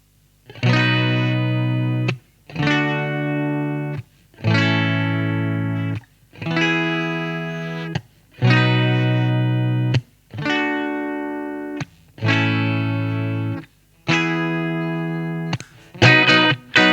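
Electric guitar played through a Caline CP-12 Pure Sky overdrive pedal into a Vox AC15 amp. Eight chords are struck about every two seconds, each held for about a second and a half and then muted, and quicker rhythmic strumming starts near the end.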